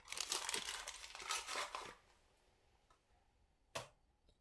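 A plastic packet crinkling and rustling for about two seconds as the last of the cinnamon powder is shaken out of it, followed by a single light knock about three-quarters of the way through.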